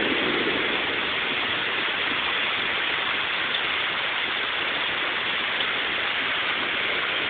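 Torrential rain pouring down in a severe thunderstorm, a steady, even hiss of heavy rain on surfaces.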